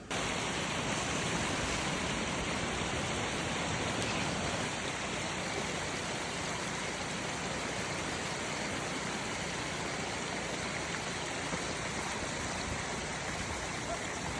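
Steady rushing of river water tumbling over a waterfall, an even noise with no breaks.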